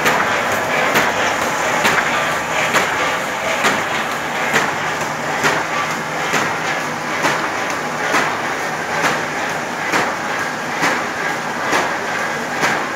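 Duplex-paper roll-to-sheet cutting machine running steadily, with a sharp clack a little under once a second as the cutter chops each sheet off the unwinding roll.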